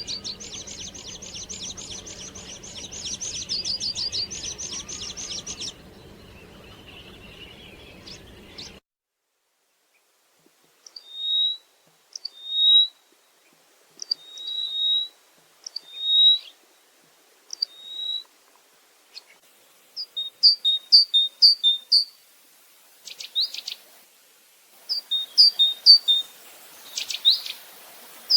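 Songbirds singing: a rapid high trill over a low steady background for the first several seconds, then after an abrupt cut, short high chirps repeated about once a second, becoming quicker clusters of notes toward the end.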